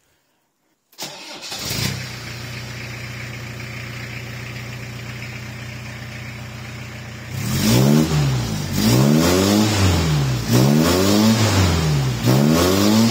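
Iveco Daily 35-8 diesel engine starting about a second in after the glow-plug wait, then idling steadily through a freshly rigged custom 63 mm stainless exhaust. About seven seconds in it is revved on the spot four times, each rev rising and falling in pitch and louder than the idle.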